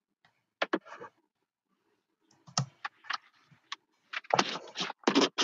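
Computer keyboard keys clicking in a few separate taps, as text is deleted in a word-processor document. Near the end comes a louder, denser stretch of noise.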